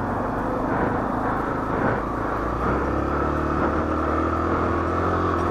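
Honda XR 250 Tornado's single-cylinder four-stroke engine running steadily, loud, with small shifts in pitch.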